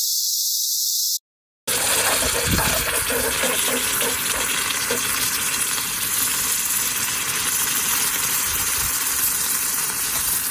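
Hot freshly cast aluminum key quenched in a bucket of water, sizzling and bubbling steadily, with crackling pops for the first few seconds; a crazy sound. It opens with about a second of high, thin buzz that cuts off in a brief silence.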